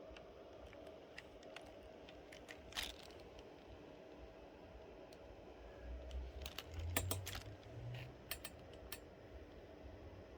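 Scattered light clicks and taps of hard plastic being handled as a wing is fitted to an RC buggy, busiest in the second half, with a few soft low thumps over a faint steady hum.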